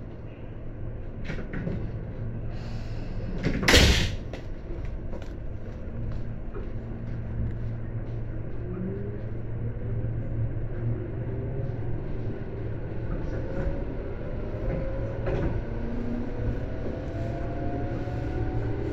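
Tobu 10030 series electric train running, with a steady low hum and one loud thud about four seconds in; from about eight seconds the traction motors' tones rise slowly in pitch as the train accelerates.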